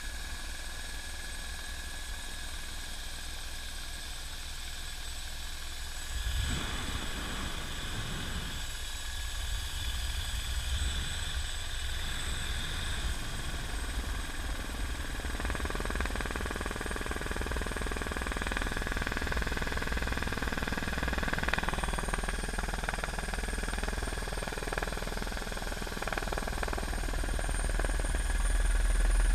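Helicopter rotor and turbine heard from inside the cabin with the door open: a steady high turbine whine over a heavy rotor rumble. The noise steps up sharply about six seconds in and grows louder again near the end.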